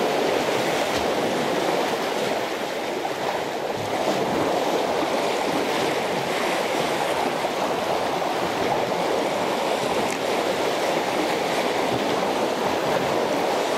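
Steady rush of sea water washing among concrete tetrapod breakwater blocks, an even noise without distinct breaks.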